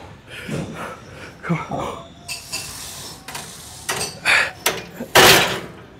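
Straining grunts and hard breaths through a heavy Smith machine bench press rep, with light metallic clinks from the loaded bar and weight plates. A loud forceful breath comes about five seconds in.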